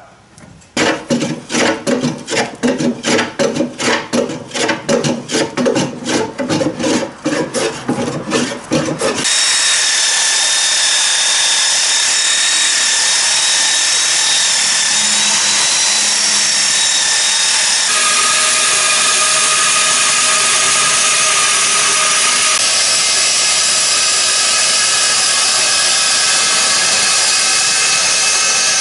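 About eight seconds of rhythmic hand-tool strokes on wood, two to three a second. Then a belt sander runs steadily on a laminated mahogany seat riser, and later a bandsaw runs steadily as it cuts the riser to a curve.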